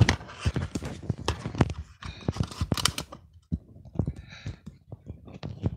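Handling noise from a hand working the camera close to its microphone: a rapid run of clicks, knocks and rustling, busiest in the first half and thinning out after about three and a half seconds.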